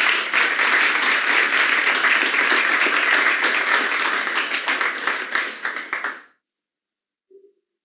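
Applause from many clapping hands, heard over a video-call connection; it runs for about six seconds and cuts off suddenly.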